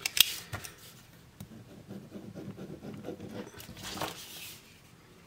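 Parker Jotter ballpoint pen clicking a couple of times at the start, then its tip scratching on a small paper notepad while scribbling, and the paper rustling as the pad is picked up near the end.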